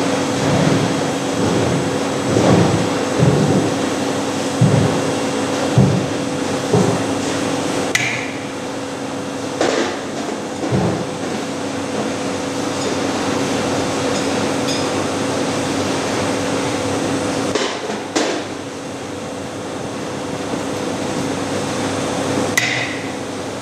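Universal testing machine running with a steady hum while pulling a rebar joined by a mechanical coupler in tension. Irregular low knocks come in the first several seconds, then a few sharp cracks about eight, ten, eighteen and twenty-three seconds in as the bar takes load.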